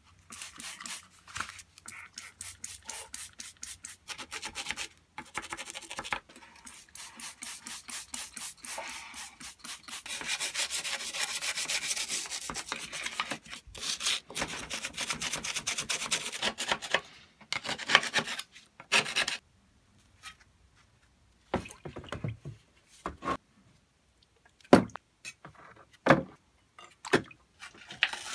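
A stiff brush scrubbing the wet cast-iron body of a hand plane in rapid back-and-forth strokes. After the scrubbing stops, a few separate knocks and clicks follow.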